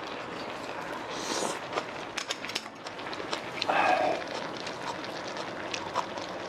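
Eating at a table: spoons and chopsticks clicking against bowls and slurping of fish stew, over the steady hiss of a portable gas burner under the stew pot. There is a louder short slurp about four seconds in.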